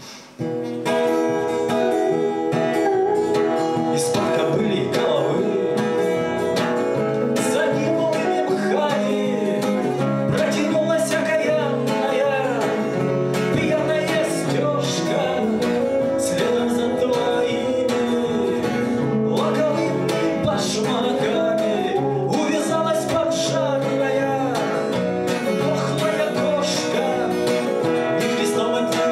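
Acoustic guitar and electric guitar playing a song together live, with a man singing; the playing comes in about a second in after a brief pause.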